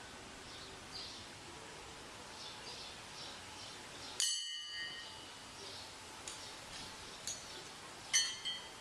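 A bell-like metallic chime rings twice, about four seconds in and again near the end, each strike fading over about half a second. Faint bird calls repeat in the background.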